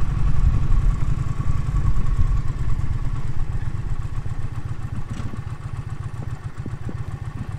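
Indian Challenger's V-twin motorcycle engine running at low speed with a deep, even low pulsing, growing gradually quieter as the bike slows and eases off toward idle.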